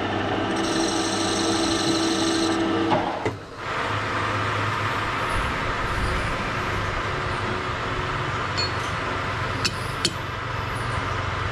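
Metal lathe turning a wooden workpiece, running with a steady whine and a higher cutting hiss from the tool for the first few seconds, then the spindle stops about three seconds in. A steady mechanical hum carries on afterwards, with two sharp clicks near the end.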